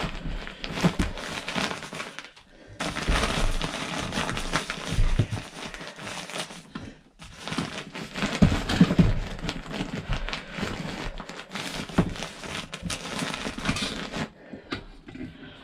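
Fiberglass insulation rustling and crackling as it is pushed by hand up into an RV ceiling cavity. The handling goes in stretches, with short pauses about two and seven seconds in, and dies away near the end.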